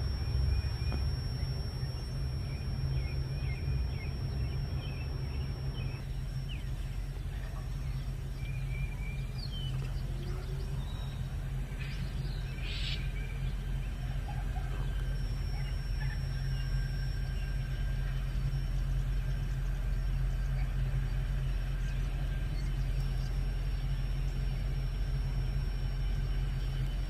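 CSX diesel freight locomotives idling with a steady low rumble, with birds chirping now and then.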